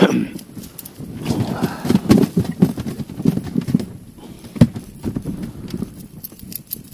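A landed fish flapping in the landing net on the floor of an inflatable boat. A quick run of dull thumps starts about a second in, and a single sharper knock comes a little past the middle.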